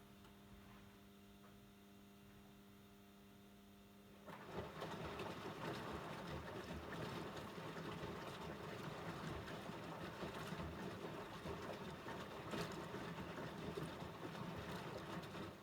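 AEG LS60840L washing machine running mid-cycle: first a steady low electrical hum, then about four seconds in a louder, rough rushing noise of water sets in and runs on until just before the end, when it drops back to the hum.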